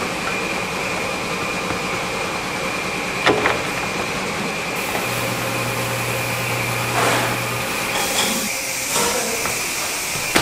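Factory machinery running with a steady drone and a high whine. There is a sharp knock about three seconds in, a lower hum from about five to eight seconds, and a few short clattering scrapes near the end.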